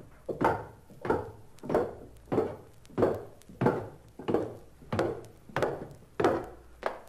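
Evenly paced sharp knocks on wood, about three every two seconds, a sound effect played back from a 1963 Audio Fidelity stereo demonstration LP.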